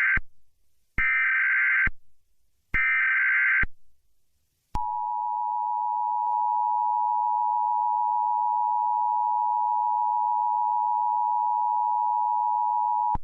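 Emergency Alert System activation: the end of one and two more roughly one-second bursts of SAME header data tones, then the EAS two-tone attention signal. The attention signal is a steady dual tone near 900 Hz, held for about eight and a half seconds before it cuts off.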